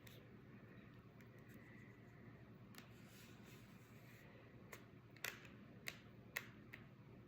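Near silence with a few faint, sharp clicks and taps from handling the pocket watch and its box, mostly in the second half.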